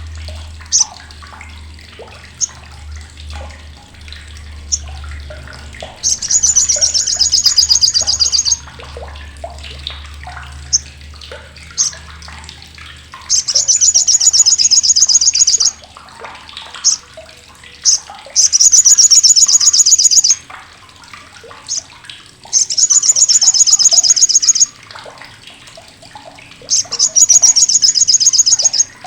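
Olive-backed sunbird (sogok ontong) giving its loud, harsh, sharp chattering trill: five bursts of about two seconds each of very rapid high-pitched notes, with short single chip notes in between.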